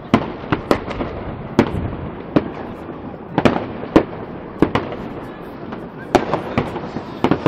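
Distant fireworks going off: about fifteen sharp bangs and cracks at irregular intervals over a steady background haze of more far-off bursts.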